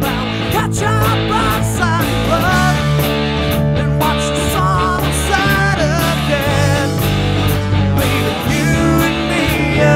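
Rock background music with guitar: a wavering, bending melody line over steady held bass notes.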